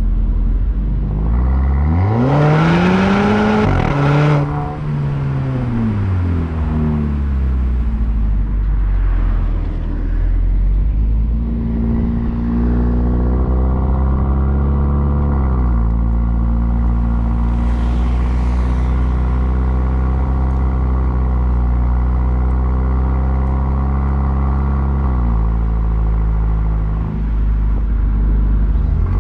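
2019 Volvo V40 T5's 2.0-litre turbocharged four-cylinder heard at the tail through a Polestar exhaust while driving: a hard acceleration with the revs climbing for about two seconds, then the revs falling away suddenly and dropping further. It then runs at steady cruising revs with small rises and falls, and starts climbing again at the very end.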